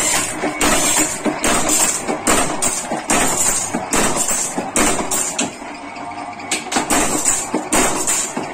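Mechanical power press punching spoon blanks out of a steel strip, its die striking again and again with sharp metallic clanks, about two or three a second, with a brief lull around six seconds in.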